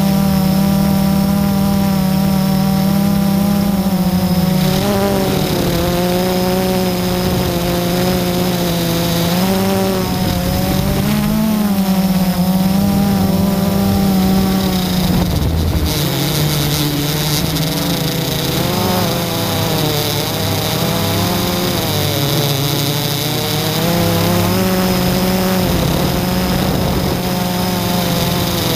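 FPV aircraft's motors and propellers running in flight, heard close up from the aircraft's own camera: a steady buzz whose pitch keeps rising and dipping.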